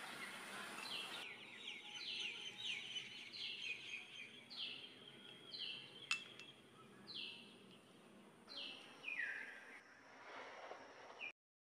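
A bird calling over and over: short chirps that each fall in pitch, roughly one a second, over a faint hiss. There is a single sharp click about six seconds in, and the sound cuts off abruptly near the end.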